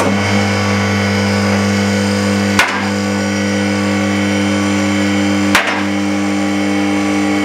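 Two-post car hoist raising a car: its electric hydraulic pump motor starts and runs with a steady hum. A sharp click breaks in about every three seconds.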